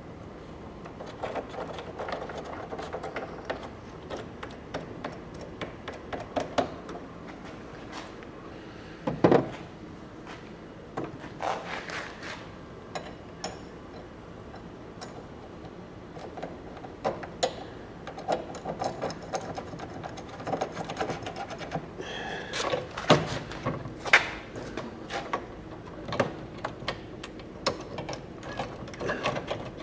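Irregular clicking, tapping and clanking of hand tools and metal parts being handled, with a louder knock about nine seconds in and a few more near the end.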